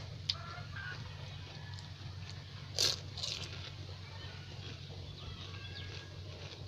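A crisp crunch of a pani puri shell being bitten about three seconds in, with a smaller crackle just after, over a steady low hum and faint short calls in the background.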